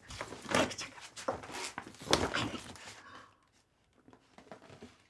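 Paper gift bag rustling and crinkling in irregular bursts as hands rummage inside it and pull things out, going quiet a little after three seconds in.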